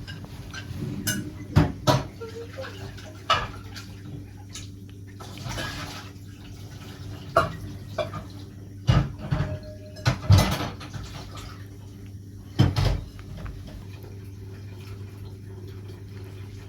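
Irregular knocks and clatters of objects being handled, loudest in small clusters, over a steady low hum.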